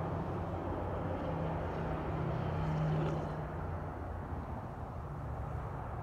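Sonoline B fetal Doppler's speaker giving a steady rushing noise with a low hum, its probe held in gel on a pregnant dog's belly over a puppy that lies deep. It swells slightly around the middle.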